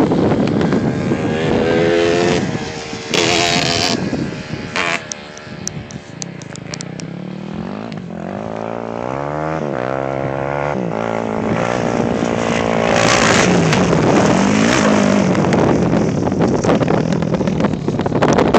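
Yamaha YZ250 two-stroke dirt bike engine revving and shifting as it rides around, its pitch rising and falling again and again. It drops off around six seconds in, then grows steadily louder toward the end as the bike comes closer.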